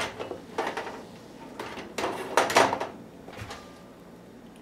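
Heavy cast iron Dutch oven lid being handled and lifted off the pot: four scraping, knocking metal-on-metal sounds, the loudest about two and a half seconds in.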